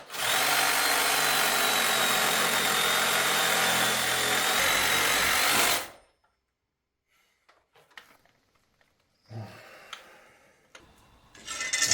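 A handheld battery power tool's motor running steadily with a high whine for about six seconds, then cutting off; a few faint knocks follow.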